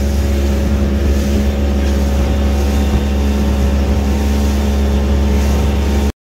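Small motorboat's engine running steadily at cruising speed, a loud, even low hum while the boat is under way. It cuts off suddenly about six seconds in.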